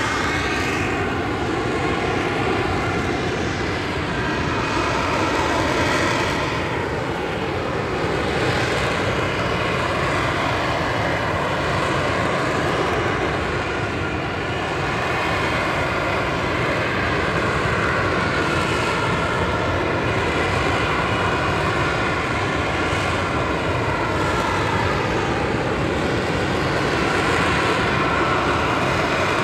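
F-35B in a vertical hover, its F135 jet engine and shaft-driven lift fan running at hover thrust. A steady, loud roar whose tones slowly slide up and down as the jet turns in place.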